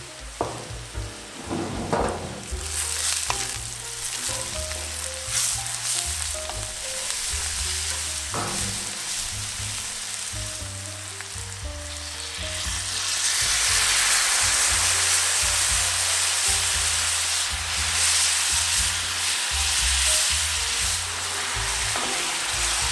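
Onions and spices sizzling in a hot cast-iron skillet. About twelve seconds in, vinegar is poured into the pan and the sizzle jumps to a much louder hiss, which carries on as a wooden spoon stirs the mix.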